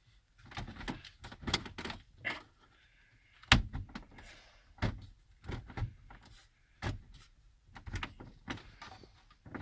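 Plastic dash trim being pushed, knocked and clicked into place around a newly fitted stereo: a string of irregular knocks and clicks, the sharpest about three and a half seconds in.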